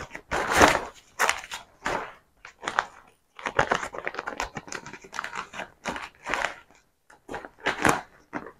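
Stiff gele head-tie fabric crinkling and rustling in short, irregular bursts as it is folded into pleats by hand.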